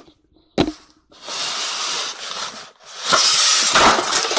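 Packaging being pulled open: a single knock, then two long rasping stretches of tearing and rustling, each lasting over a second.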